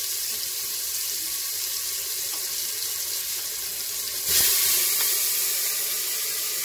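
Whole spices and ginger-garlic paste sizzling in hot oil in an aluminium pressure cooker, a steady hiss. A little over four seconds in it jumps to a louder, fuller hiss as liquid goes into the hot cooker and throws up a burst of steam.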